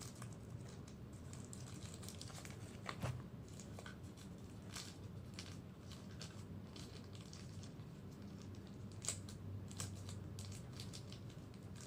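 Faint crinkling of packaging and scattered light clicks as small accessories are unpacked and handled, with sharper clicks about three seconds in and about nine seconds in.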